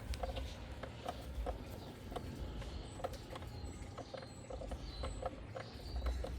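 Irregular light clicks and taps of hand tools working on the engine, over a low rumble, with a few faint bird chirps.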